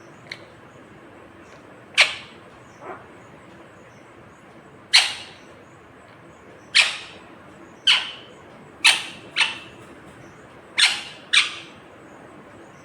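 Ringneck parakeet giving short, sharp calls, about eight loud ones spaced a second or two apart with a couple of fainter ones, the later calls coming in quick pairs.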